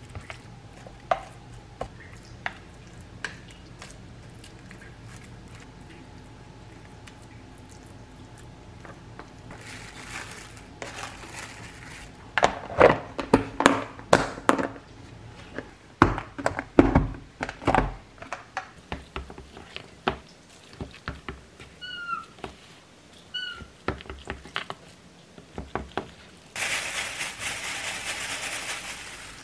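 Kitchen handling sounds. Scattered light clicks of a spoon in a pan of mix, then a run of loud knocks and clicks as a plastic food-storage container's locking lid is pressed and snapped shut, and two short high squeaks. Near the end comes a steady crinkle of disposable plastic gloves shaping the mix into balls.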